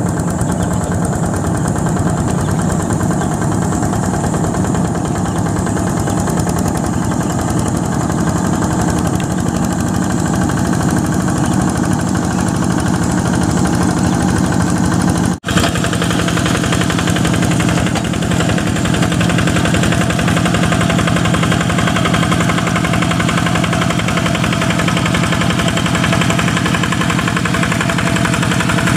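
Single-cylinder Yanmar diesel engine of a two-wheel hand tractor chugging steadily under load while it ploughs a flooded rice paddy. The sound cuts out for a moment about halfway through.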